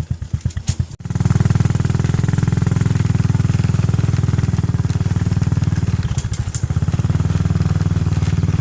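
Motorcycle engine running, pulsing more slowly at first, then a steady drone after a short break about a second in.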